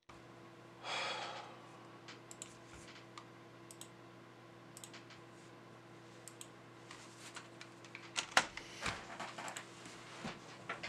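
Scattered clicks and taps of a computer keyboard, sparse at first and bunching up in the second half, over a low steady electrical hum. A short breathy rush of noise comes about a second in.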